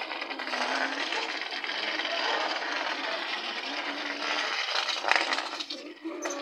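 Homemade wire toy car rattling and clattering as it is rolled along brick paving by its long wire steering rod, with a sharp knock about five seconds in.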